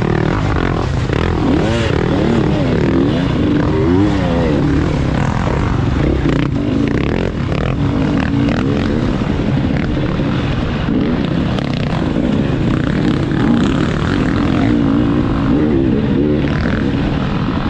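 Off-road dirt bike engine being ridden hard, its pitch rising and falling constantly as the throttle is worked on and off over rough trail, heard close up from the rider's own bike.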